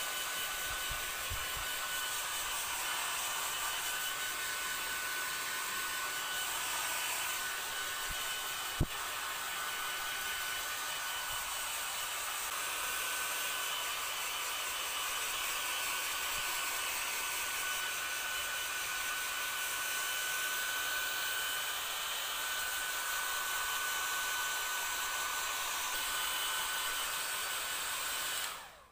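Small handheld hair dryer blowing steadily, with a faint high motor whine under the rush of air. A single sharp click comes about nine seconds in, and the dryer cuts off at the very end.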